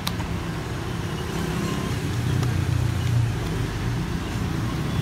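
One short key click right at the start from the backlight key of a Zerodate X12 rubber-dome keyboard, over a steady low rumble of road traffic that swells a little around the middle.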